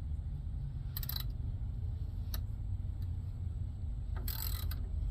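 Socket wrench working the APU belt tensioner bolt: three short bursts of metallic clicking and rattling, about a second in, briefly near the middle, and a longer one near the end, over a steady low rumble.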